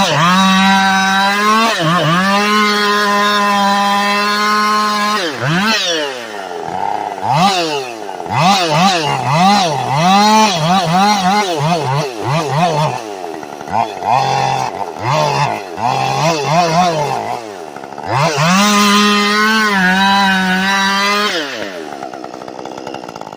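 Small engine being revved over and over: quick climbs and drops in pitch, held at high revs for a few seconds near the start and again near the end, then settling lower in the last seconds.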